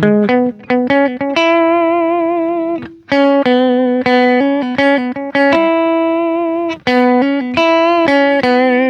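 Electric guitar played through a Ross compressor reissue on its bright setting, into a Tube Screamer, Stone Deaf PDF-2 and Fulltone Fat-Boost: a single-note melodic line, several held notes sustaining long and even with vibrato.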